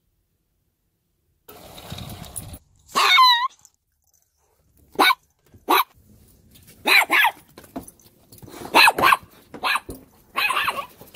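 A small dog, a chihuahua, gives one high, wavering whine, then a string of short, sharp barks, several in quick pairs.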